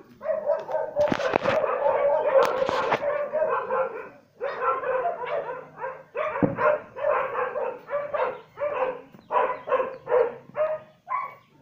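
Dog whining: one long whine lasting about four seconds, then a run of short whimpering cries, about two a second. Two sharp clicks come about one and two and a half seconds in.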